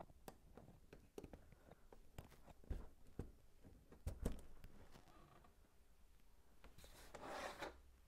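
Faint clicks and taps of plastic LEGO pieces being handled and pressed together on a brick build, with two sharper clicks about three and four seconds in and a brief rustle near the end.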